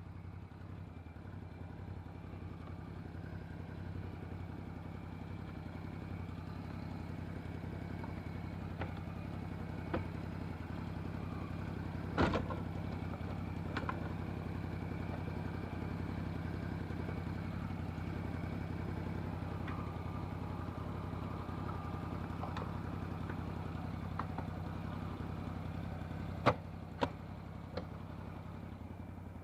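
CFMoto CForce 800 ATV's V-twin engine idling steadily while parked and warming up. A few sharp clicks or knocks sound about twelve seconds in and twice near the end.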